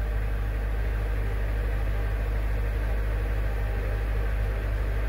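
Mercedes-Benz SL500's V8 engine idling steadily, a low even hum with no misfires or warning noises, after its repaired battery control module has been refitted.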